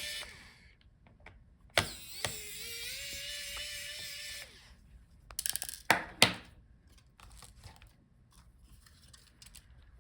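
Small electric screwdriver whirring steadily for about two seconds as it backs out a laptop cooling-fan screw, after a click. A few sharp clicks and taps of small parts follow about six seconds in.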